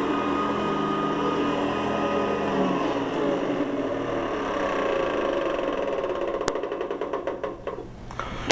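Hoover Guardsman upright vacuum running steadily, then switched off about two and a half seconds in: the motor's hum falls in pitch and winds down, ending in a ticking that slows as it coasts to a stop. A single sharp click comes partway through the wind-down.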